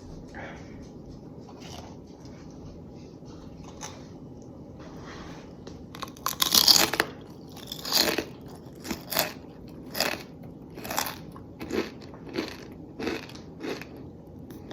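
A crunchy snack being bitten and chewed close to the microphone: a loud crunch about six seconds in, then steady crunching chews a little under two a second.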